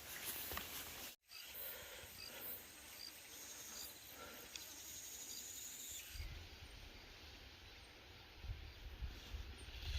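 Faint forest ambience with insects chirping in short, evenly spaced calls, and a low rumble coming in from about six seconds in.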